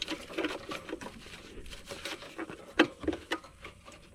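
Light scattered clicks and rustling from hands working around a mower's frame, with one sharper click a little before three seconds in.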